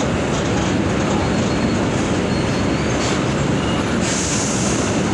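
Mercedes-Benz OF-1722M bus under way, its engine and road noise steady and loud, with a short hiss about four seconds in.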